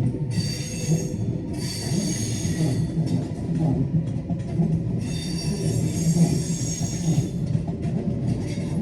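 Train wheels squealing on the rails in high, many-toned stretches of about one to two seconds, three times, over the steady low rumble of a train moving on the tracks.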